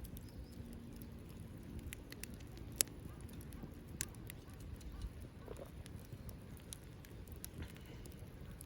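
Small wood fire burning in a Belmont TABI fire stand, crackling with irregular sharp pops over a low steady rumble of flame. The loudest pops come about three and four seconds in.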